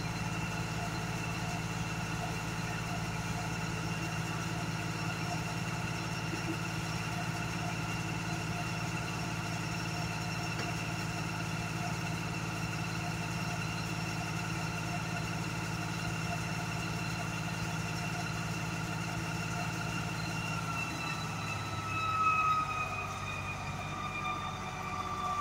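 US Jetting 4018 sewer jetter (a 4000 psi, 18 gpm high-pressure water jetting unit) running steadily, its engine and pump making a constant drone with a steady whine. Near the end the pitch dips slightly, with a brief louder swell.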